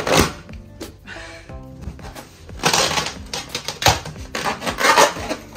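Inflated rubber balloons being pressed, squeezed and rubbed by hand against the floor and each other, giving bursts of rubbery rustling and scuffing with a few sharp clicks, over background music.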